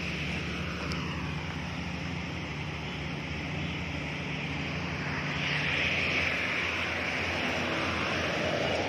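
Motorway traffic: a steady low engine hum with wind on the microphone, and a bus passing on the wet road, getting louder from about five seconds in.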